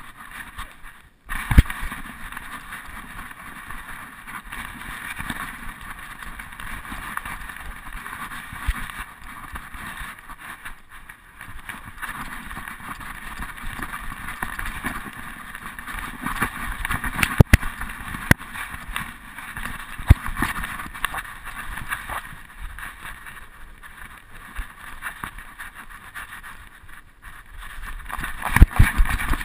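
Muffled rubbing and jostling noise from a GoPro on a dog's harness as the dog moves about, with irregular knocks, the loudest about a second and a half in and in a cluster near the end.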